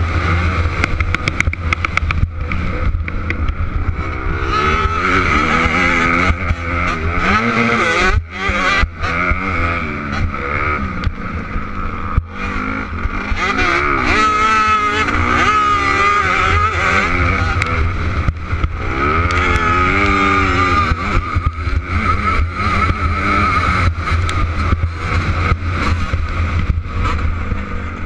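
Dirt bike engine revving hard in a motocross race, the revs climbing and dropping again and again through gear changes, heard from a camera mounted on the bike with wind rushing over the microphone.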